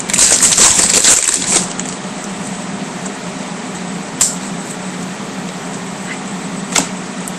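Foil wrapper of a 2009 Bowman Chrome card pack crinkling as it is torn open during the first second and a half. Then the cards are handled, with two light clicks, over a steady low hum.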